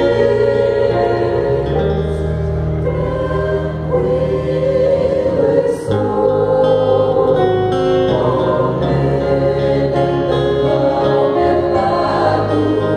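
A mixed vocal group of men and women singing a gospel hymn in harmony into microphones, with held chords over a sustained bass accompaniment.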